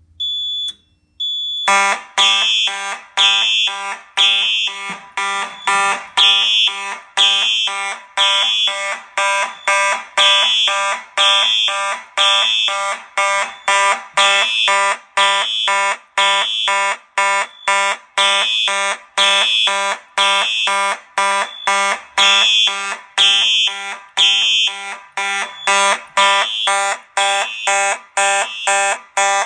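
Simplex fire alarm horns going off after a smoke detector trips: a 4903-9236 electronic horn sounding temporal code 3 and a 4903-9219 mechanical horn sounding march time together, in rapid repeating pulses. A short high beep comes first, and the horns start just under two seconds in.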